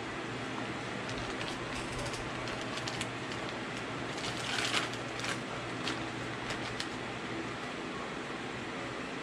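Small metal differential shims clicking lightly as they are sorted by hand, with a plastic bag crinkling for about half a second near the middle, over a steady background hiss.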